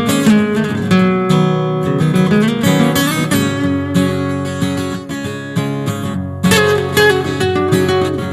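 Background music: an acoustic guitar strummed and plucked.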